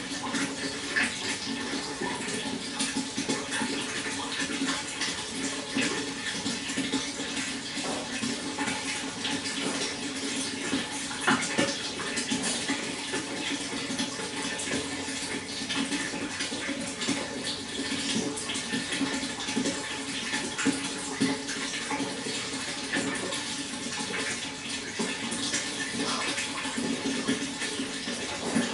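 Steady flowing water, an even rush with many small splashes throughout.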